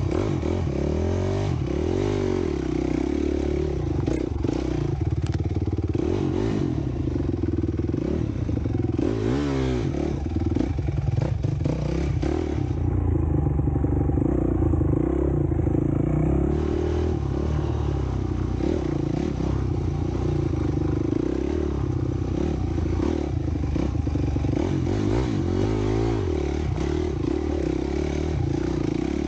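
Honda CRF250X dirt bike's four-stroke single-cylinder engine running under way, its pitch rising and falling as the throttle is worked, with a quick run of revs about nine seconds in. Knocks and rattles from the bike run through it.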